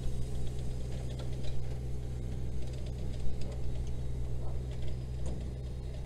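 Engine of a small machine running steadily under load as it tows a trailer, with light rattles and ticks over the engine sound.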